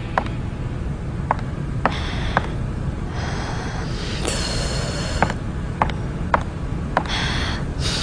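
High-heeled shoes clicking on a hard floor as a woman walks, a sharp single click roughly every half second at an uneven pace, with a few short stretches of hissing rustle in between.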